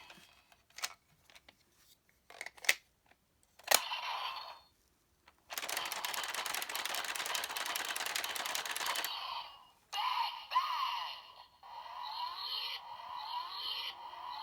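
Geartlinger toy blaster's electronic sound effects: several sharp plastic clicks as a gear is handled in the blaster, then a long hissing blast effect of about four seconds, then electronic sweeping, chirping tones from its speaker.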